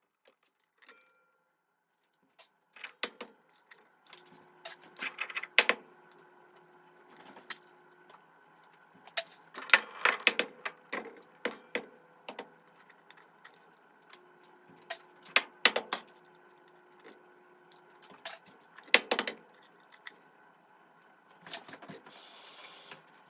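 Eggs being cracked against the rim of a bowl, one after another: clusters of sharp taps and clicks of shell on the bowl, with pauses between eggs.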